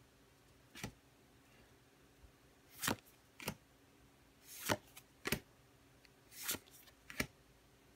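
Pokémon trading cards being slid one at a time from the back of a hand-held stack to the front. There are about seven short papery swishes and flicks, some in quick pairs, with quiet between them.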